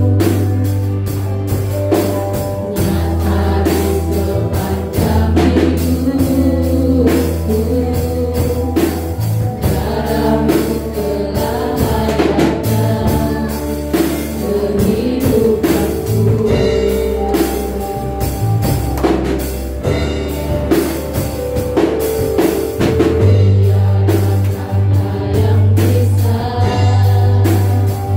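Live church worship band playing a sung gospel worship song: a singer's voice over drum kit, guitar and a strong steady bass line.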